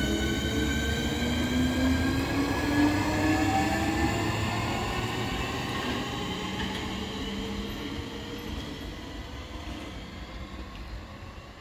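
Southeastern Class 465 Networker electric multiple unit accelerating away: its traction motors give a whine of several tones that slowly rises in pitch over the rumble of wheels on track. It is loudest a few seconds in, then fades as the train draws off.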